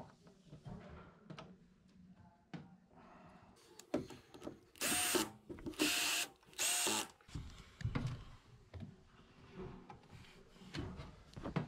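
Ryobi cordless drill run in three short bursts about halfway through, its motor whine rising and dropping back each time, driving in a shock-absorber mounting peg on a front-loading washer. Light clicks and knocks of parts being handled around it.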